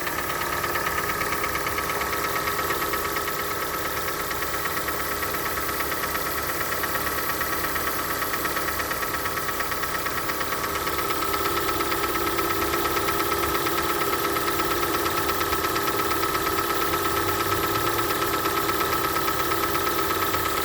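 Hyundai ix35 engine idling cold, with a fast, even tapping knock running through it. The owner takes the knock for noisy hydraulic valve lash adjusters.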